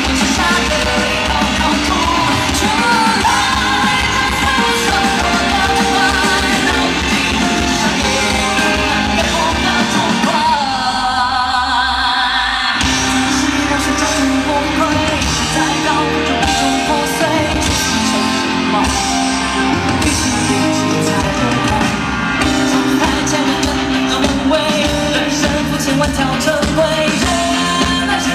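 A male singer's voice over a loud live band in a large hall. About ten seconds in, the bass and drums drop away for a couple of seconds, then the full band crashes back in.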